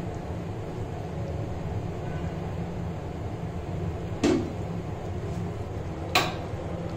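Two sharp clicks of a utensil or lid against a cooking pan, about two seconds apart, over a steady low hum.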